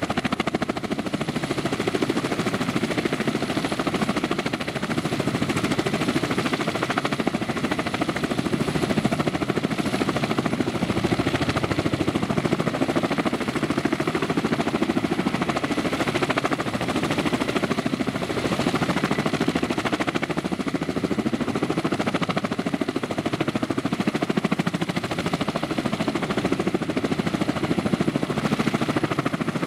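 Kamov Ka-32 coaxial-rotor helicopter running on the ground: turboshaft engines and its two contra-rotating rotors turning steadily, a continuous engine drone with a fast even pulsing through it.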